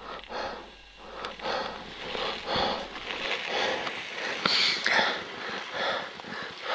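A mountaineer breathing hard and fast while climbing a steep snow slope, in short rasping gasps about two a second: laboured breathing from exertion in thin, high-altitude air. A few light knocks, likely the ice axe biting into the snow, sound among the breaths.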